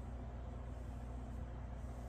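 Steady low hum with a faint even hiss: constant background noise, with no distinct sounds standing out.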